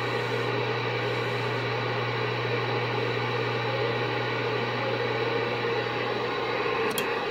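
CB radio speaker carrying an incoming transmission with no voice on it: a steady hiss of static over a low hum. It cuts off abruptly with a click near the end, as the transmission drops.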